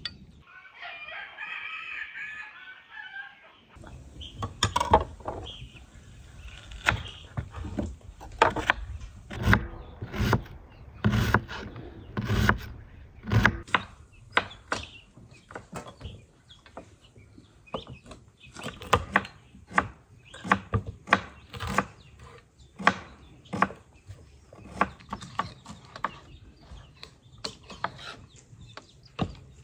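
A kitchen knife chopping onion on a wooden cutting board: irregular sharp knocks, one or two a second, starting a few seconds in.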